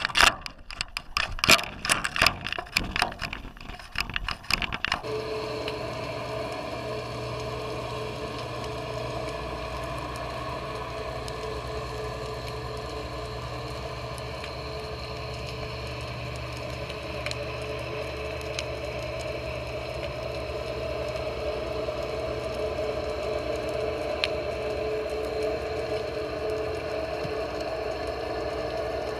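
A GoPro in its waterproof housing plunges into the sea, splashing and knocking about for the first five seconds. It then settles underwater, where a steady muffled hum with a low drone goes on.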